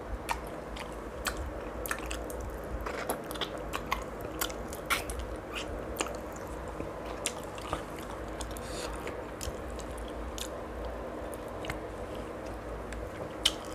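Close-up chewing and lip-smacking of braised pork hock (paksiw na pata), eaten by hand, with irregular sharp mouth clicks and smacks throughout.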